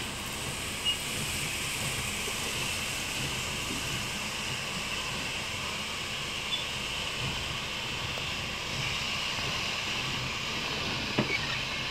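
Steady cab noise of a Volvo heavy vehicle under way: engine and road noise as a low hum with a hiss. A short click comes near the end.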